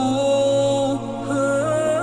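Background music: a slow melody of long held notes that waver slightly at their ends, over a steady low note.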